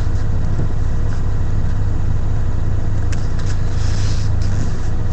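A steady low rumble, with a few faint crinkles of paper being folded about three seconds in.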